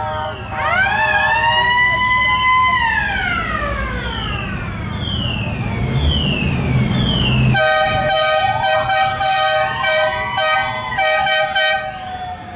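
Electronic vehicle sirens on parade cars: a wail climbs for about two seconds, holds, then falls away, followed by a run of short falling sweeps about one a second. From just past halfway a steady multi-tone horn sounds, breaking into short blasts near the end, with another siren rising and falling under it and engine rumble below.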